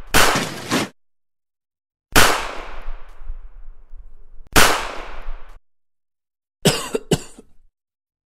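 Battle sound effects of gunfire and shellfire: a bang just after the start, two bigger blasts about two and four and a half seconds in that each die away over about a second, and two quick sharp shots with a ringing tail near the end, with silence between.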